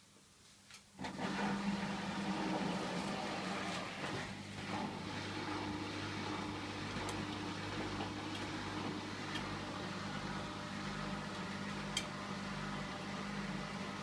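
Hotpoint washing machine running mid-cycle with a steady hum, draining its water ahead of the spin, with a few faint clicks. The hum starts abruptly about a second in.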